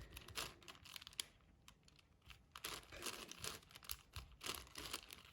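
Faint, irregular clicking and clacking of a 6x6 Rubik's cube's plastic layers being turned by hand, with a brief lull about a second and a half in.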